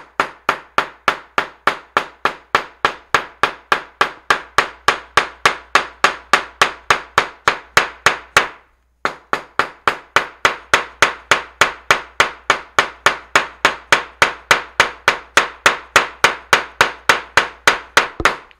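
Claw hammer pounding a leaf through a paper towel onto paper on a cutting mat: a steady run of sharp taps about four a second, with one brief pause about halfway through. The blows press the leaf's pigment into the paper.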